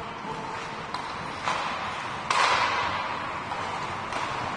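Hockey game sound in a rink: a noisy crowd and rink din that swells suddenly twice, about a second and a half in and again just past two seconds, with a sharp click about a second in.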